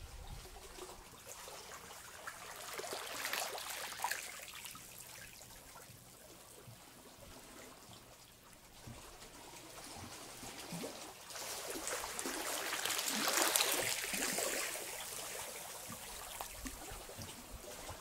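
Small sea waves washing over and trickling off the rocks of a shallow shoreline. The wash swells twice, about three seconds in and more strongly about twelve to fourteen seconds in.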